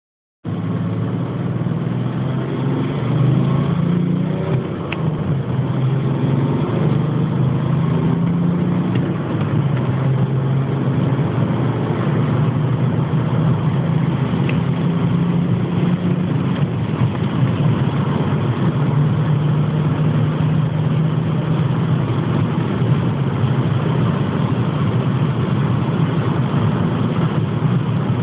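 BMW E61 525d's inline-six diesel engine running steadily, its pitch wandering slightly in the first ten seconds or so.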